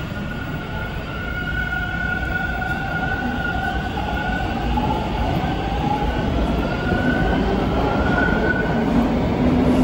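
TTC T1 subway train standing at a station platform: a low rumble with a steady, slightly wavering whine above it, growing gradually louder.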